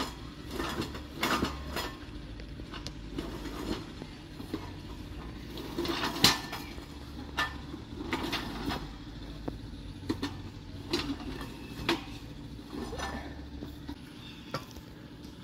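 Steel rollers of an outdoor-gym roller walking platform clanking and rattling irregularly as a person steps and shifts his weight on them.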